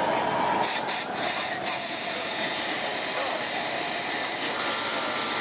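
A loud hiss of gas rushing from an experimental jet rig. It comes in a few short spurts at first, then settles into a steady hiss.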